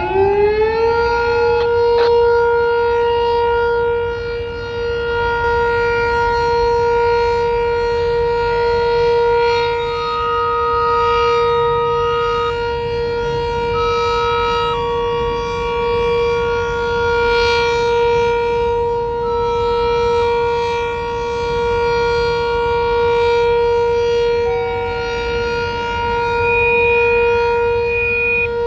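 Sentry 7V8 outdoor warning siren sounding a steady test tone. It finishes winding up about a second in, then holds one pitch, its loudness swelling and fading every few seconds.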